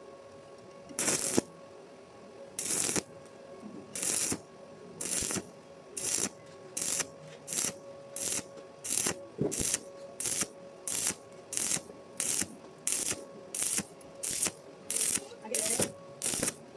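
Welding arc struck in over twenty short crackling, hissing bursts, a few spaced out at first, then coming about one and a half a second, like a run of stitch or tack welds.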